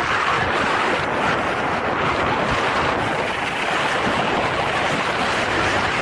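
Steady rush of wind across a camera microphone from the airflow of a paraglider in flight.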